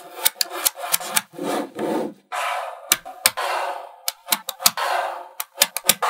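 Small magnetic balls being handled: many sharp clicks as they snap together and pull apart, between short rasping slides as strips of balls are rubbed and rolled against each other.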